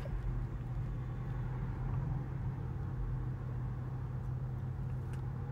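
Steady road and tyre noise inside the cabin of a moving 2022 Tesla Model 3, an electric car, so there is no engine sound, over a constant low hum. A faint single click sounds about five seconds in.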